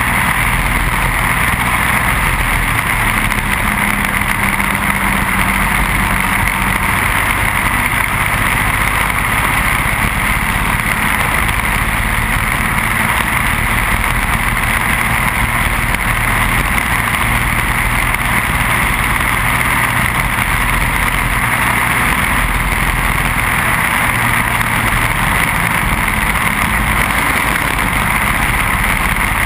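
Briggs & Stratton Animal single-cylinder four-stroke kart engine running hard at a near-steady speed, heard from onboard the kart.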